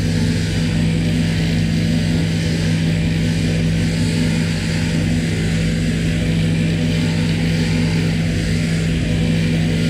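Electric sheep-shearing plant running steadily while a lamb is shorn: an even mechanical hum from the overhead gear and down-tube-driven handpiece, with a steady hiss above it as the cutter works through the fleece.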